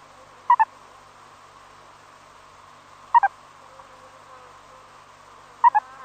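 Meerkat giving short two-note calls, three times about two and a half seconds apart, over a faint steady hiss.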